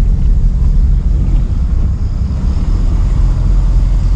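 A steady, loud low rumble with no speech.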